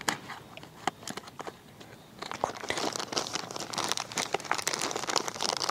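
Plastic packet of whipping cream being torn open and crinkled in the hands. There are scattered crackles at first, then denser crinkling from about two seconds in.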